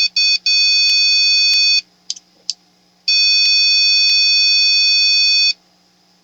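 Multimeter continuity beeper sounding as the probes touch the ground plug and the hot-air handpiece tip: a steady high beep that comes and goes with probe contact, two short chirps at first, then a beep of over a second and, after a gap, one of about two and a half seconds. The beep means the ground path to the tip is continuous.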